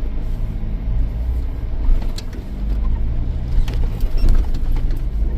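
Jeep's engine and drivetrain running with a steady low hum, heard from inside the cabin, with a few sharp knocks and rattles over a couple of seconds in the middle.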